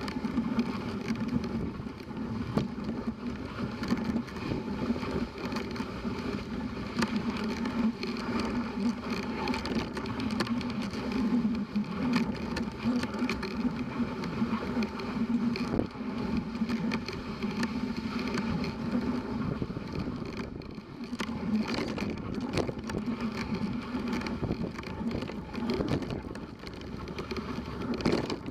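Dog sled running along a packed snow trail: the steady scraping hiss of the runners on snow, with frequent small clicks and knocks from the moving sled.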